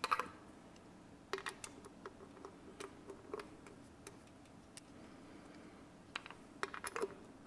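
Faint, scattered metallic clicks and ticks of a tappet cover and its small screws being handled and fitted by hand on an engine's cylinder head, in small clusters with the busiest run near the end.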